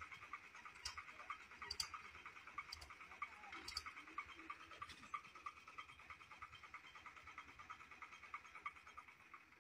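Faint, steady, rapidly pulsing high chirping from an animal chorus, with a sharp click about once a second during the first five seconds.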